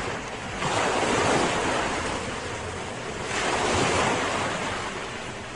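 Small sea waves breaking and washing up a sandy beach. The surf swells twice, about a second in and again after about three seconds.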